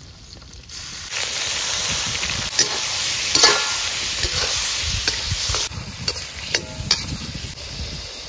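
Tomatoes and chillies dropped into hot oil rendered from pork, setting off a loud sizzle about a second in that eases off near the end, with a ladle clicking and scraping as they are stirred.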